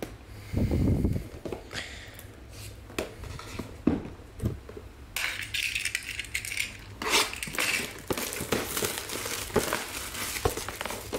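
Hands handling trading cards in hard plastic holders and their packaging: a low thump near the start, scattered clicks and knocks, then crinkling and rustling from about five seconds in.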